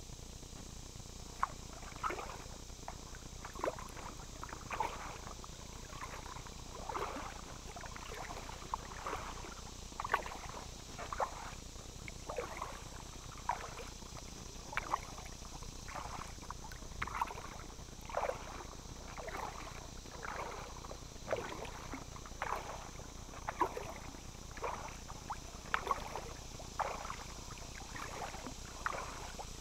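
Kayak paddle blades dipping into and pulling through calm water, a steady rhythm of splashes and drips about one to two a second, starting about a second and a half in, over a faint steady hiss.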